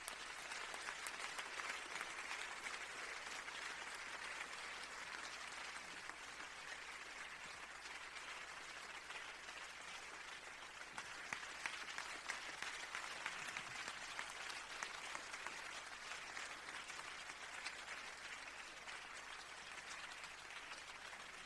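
Audience applauding, a long run of dense clapping that grows a little softer toward the end.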